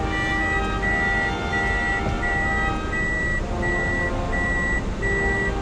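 A car's in-cabin reversing warning beeper sounding a steady high beep about every 0.7 seconds, the sign that the car is in reverse gear. Music plays underneath.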